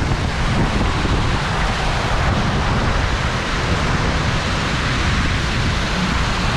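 Steady rush of water and wind buffeting the microphone as a ride tube slides around the funnel wall of a tornado water slide.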